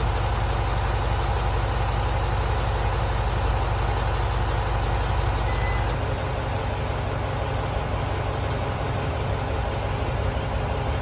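A vehicle engine running steadily at idle, a low even hum. About six seconds in, a cut gives way to a similar hum.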